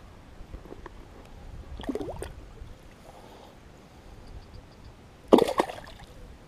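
A small largemouth bass dropped back into the lake with a sudden splash about five seconds in. Before it there is soft water and handling noise, with a quieter stir about two seconds in.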